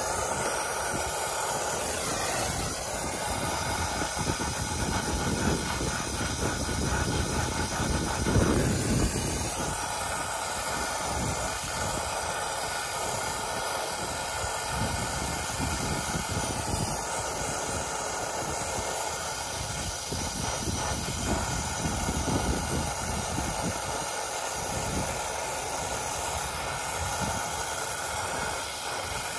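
Brazing torch flame hissing steadily as it heats a copper refrigerant joint on a heat pump's reversing valve.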